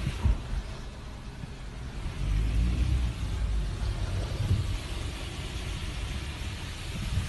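Car driving slowly over a mud- and debris-covered road, heard from inside the cabin: a steady low rumble of engine and tyres, with a short knock just after the start and a louder stretch of rumble about two to three seconds in.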